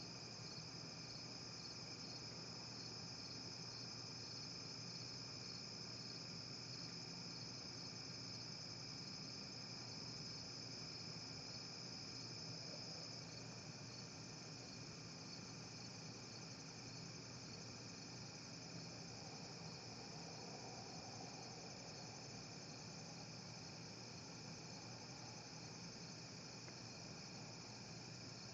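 Night chorus of crickets and other insects: a steady, high-pitched trill with a pulsing chirp on top that drops away about halfway through. A faint, steady low hum runs underneath.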